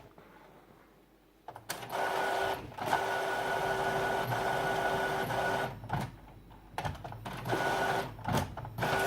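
Epson WorkForce WF-3620 inkjet printer's mechanism running with a steady whir. It starts about a second and a half in and pauses briefly several times.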